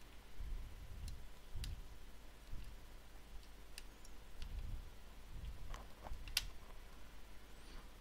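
Small screwdriver tightening the spring-loaded heatsink screws over a ThinkPad T61's CPU: a handful of separate sharp clicks as the tip works the screw heads, the sharpest about six seconds in, with dull low knocks of handling.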